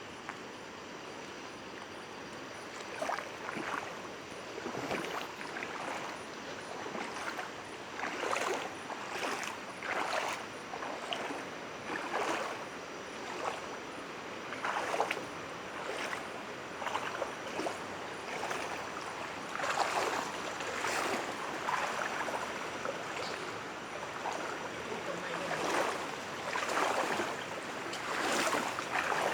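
Floodwater sloshing and splashing in irregular surges, one every second or two over a steady rush of water.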